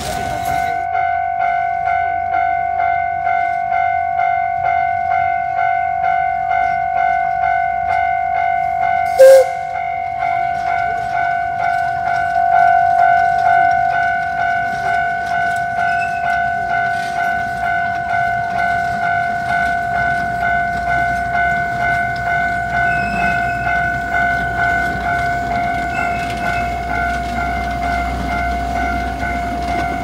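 Railway crossing warning bell ringing steadily, about two strokes a second, while a steam train passes with a low rumble that grows in the second half. A single sharp knock comes about nine seconds in.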